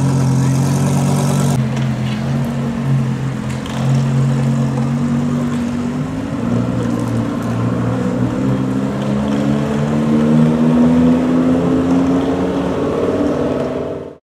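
Lamborghini Huracán LP610-4's V10 engine idling, then pulling away at low speed, its exhaust note rising slowly in pitch. The sound cuts off near the end.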